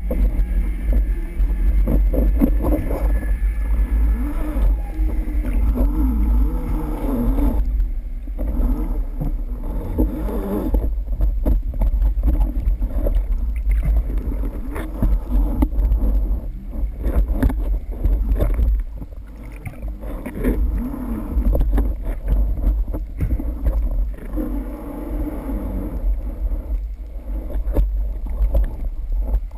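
Underwater noise heard through a waterproof camera housing: a steady deep rumble with a wavering low drone over it, easing a little around the middle.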